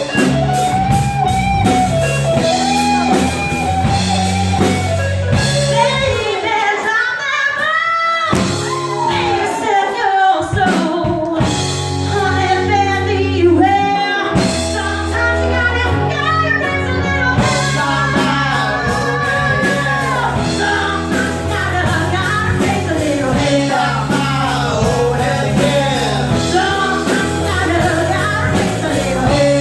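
Rock band with a lead singer playing live: a sung melody with vibrato over guitar, bass and drums. The bass and drums drop away briefly a few times between about six and fifteen seconds in, leaving mostly voice and guitar, then the full band comes back in.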